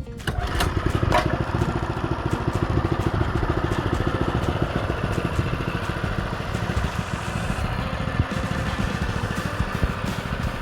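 Baja Warrior mini bike's 196 cc single-cylinder four-stroke engine running steadily with a fast, even train of exhaust pulses. The governor has been deleted, and the fitted carburetor only keeps it running on choke.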